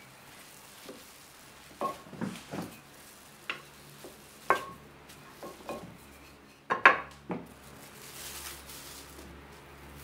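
Wooden rolling pin knocking and clacking against a cling-film-covered worktop as a ball of bun dough is rolled flat: a series of separate sharp knocks, the loudest about seven seconds in. Near the end there is a soft crackle of the plastic wrap as the dough is lifted off it.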